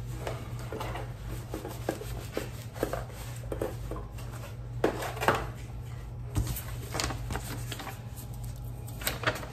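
Handling sounds of packing small black cardboard gift boxes: scattered light knocks and rustles as a box is set down, lifted and wiped with a cloth, and a label sticker peeled from its backing near the end, over a steady low hum.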